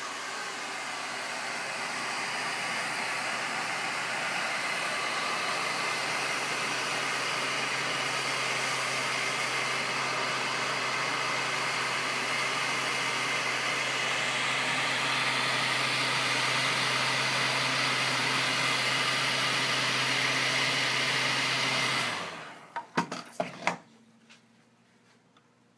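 Heat gun blowing hot air steadily with a low motor hum, warming a water-soaked hide glue joint so the glue liquefies and the joint can be broken loose. It cuts off near the end, followed by a few light knocks.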